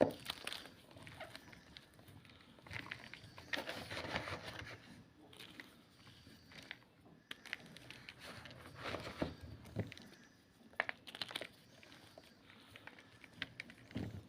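Homemade gym chalk being crunched and crushed: irregular runs of dry, crackly crunches with sharp snaps, busiest in two stretches, with a sharp snap at the start and another near the end.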